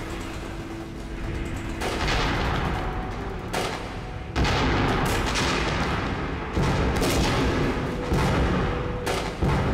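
Battle sound effects of gunfire and blasts: several sudden loud bangs about every one to two seconds, each fading away over a dense background of shooting.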